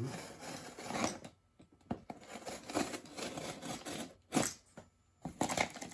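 Cardboard shipping carton being opened by hand, with tape tearing and cardboard scraping and rustling in irregular bursts, and a few sharp knocks near the end.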